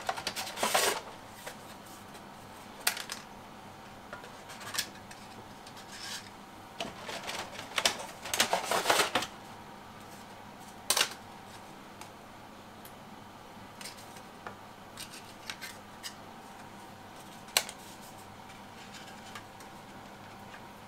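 Irregular clicks, taps and short scraping or rustling noises of hands working with kitchen things, busiest in the first second and again around the middle, over a faint steady hum.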